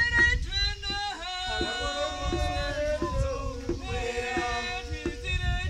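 Singing, with long held and bending notes over a steady beat of percussion strikes, about two to three a second.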